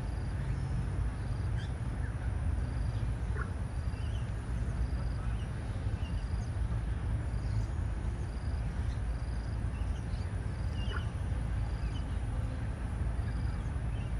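Outdoor park ambience: a steady low rumble, with a short high note repeated about once a second and scattered brief bird chirps.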